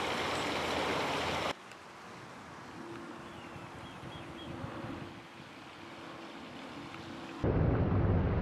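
Outdoor wind ambience in three cut-together parts: a steady rush of wind for the first second and a half, then a quieter stretch with a faint steady hum and a few faint high bird chirps, and from near the end wind buffeting the microphone with a loud low rumble.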